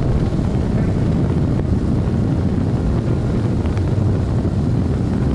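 Loud, steady wind buffeting the microphone on a bass boat running at speed, with the outboard motor and the hull rushing over the water underneath.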